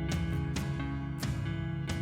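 Background music: strummed acoustic guitar with a steady beat, a chord struck about every half second.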